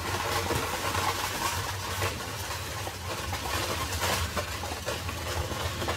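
Horse-drawn carriage rolling along an unpaved road: a steady low rumble from the wheels, with a few scattered knocks and clatters.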